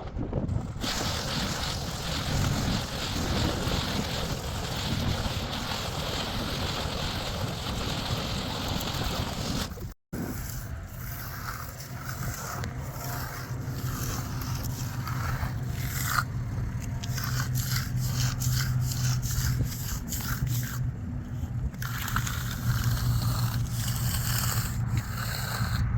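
Rough scraping and rushing noise, then, after a sudden cut about ten seconds in, a steady engine hum under repeated scraping and knocks, as from a truck running while wet concrete is worked with hand tools.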